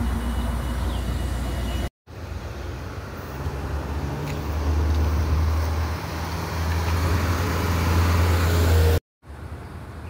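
Low, steady rumble of road traffic, swelling somewhat in the second half, broken twice by brief total drop-outs.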